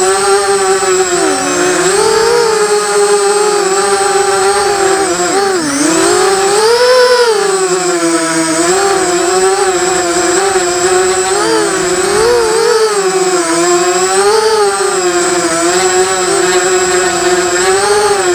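Racing quadcopter's four T-Motor MN2206 brushless motors spinning DAL 5045 bullnose propellers, heard from the craft's onboard camera: a continuous whine whose pitch rises and falls with the throttle. There is a sharp dip and surge about six seconds in.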